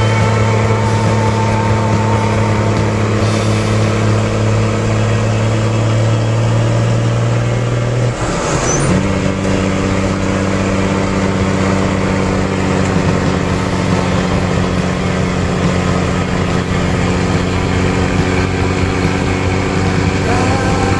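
1969 M35A2 army truck's multifuel diesel engine running steadily under way, heard from inside the cab. About eight seconds in the engine note breaks off, then settles at a lower steady pitch, as in a gear change.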